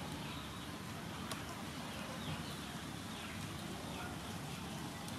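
Steady low outdoor background noise with a few short, falling bird chirps in the middle, and one sharp click a little over a second in.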